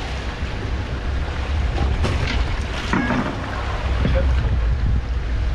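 Small fishing boat on the open sea: a steady low rumble of wind and boat, with water splashing at the surface beside the hull a couple of times.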